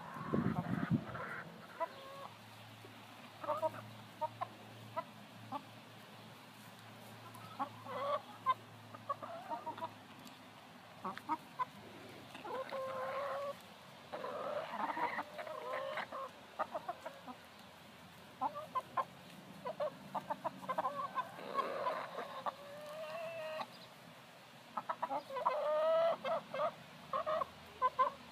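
Flock of hens clucking, with clusters of short calls repeating throughout as they feed on corn cobs. A brief low rumble comes right at the start.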